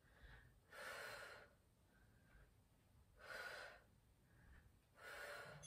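A woman breathing hard from exertion during an abdominal Pilates exercise: three separate breaths, about two seconds apart, with near silence between them.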